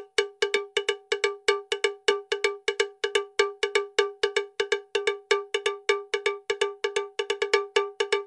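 A small metal bell-like percussion sound struck over and over in an even fast beat, about four strikes a second, each one a short bright clank that dies away quickly. It starts abruptly out of silence.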